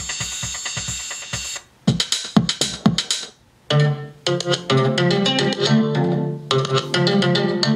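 Electronic music with a drum-machine beat, guitar-like plucked notes and bass, played through a 6x9 car speaker under test. The beat stops about a second and a half in, a few sharp hits follow with brief gaps, and sustained melodic music with heavy bass notes comes in a little before halfway.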